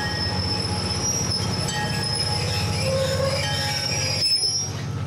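Diesel locomotive moving on the rails, its wheels squealing in high sustained tones over the low rumble of its engine.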